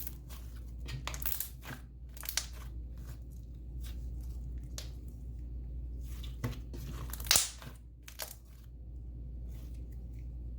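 Thick slime with instant snow being squished and stretched by hand, its trapped air bubbles popping in irregular sharp clicks, one loud pop about seven seconds in.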